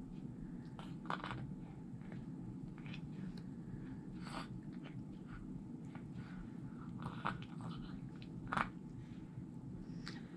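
A baby mouthing and sucking on a squeeze-bottle spoon feeder of mashed avocado: scattered wet mouth smacks and clicks, the loudest near the end, over a steady low hum.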